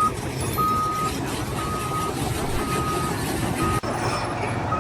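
A vehicle's reversing alarm beeping about once a second, a steady single-pitch tone over a low engine rumble, cut off abruptly near the end.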